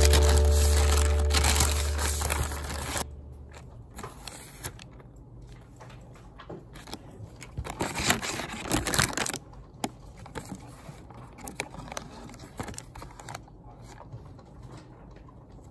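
Background music ending about three seconds in, then the crinkling and rustling of a kimbap roll's printed wrapper being unwrapped by hand, loudest about eight seconds in.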